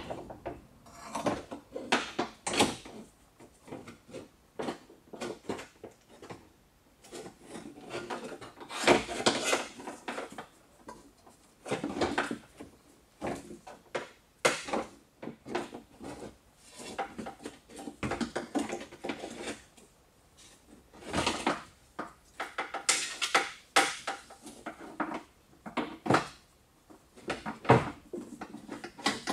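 Peugeot 607 power-window regulator, its metal rails, cables and motor, being handled inside the bare steel door shell: irregular clacks, knocks and rattles of metal against the door panel, in short clusters with brief pauses.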